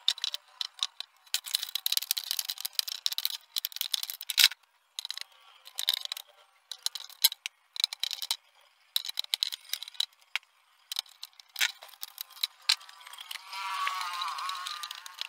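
Thin plastic backlight sheets of an LED TV being handled and pressed into place over the LED strips: a run of crackling clicks and rustles with short pauses, and a wavering warble near the end as a large sheet flexes.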